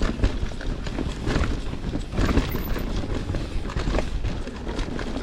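Canyon Spectral 29 full-suspension mountain bike riding down a dirt singletrack: tyres running over the ground with a steady rough rumble, and irregular clicks and knocks from the bike rattling over bumps.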